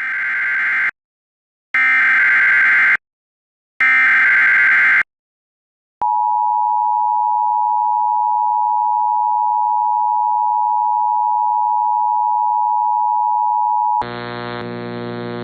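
Emergency Alert System SAME header: three screeching digital data bursts of about a second each. Then the two-tone EAS attention signal sounds steadily for about eight seconds, announcing the next tornado warning. It gives way near the end to a steady buzzy tone.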